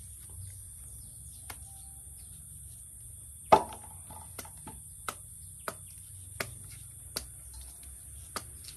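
Knife strokes cutting and paring the skin off a root tuber: about eight short, sharp chops, roughly one every three-quarters of a second, the loudest about three and a half seconds in.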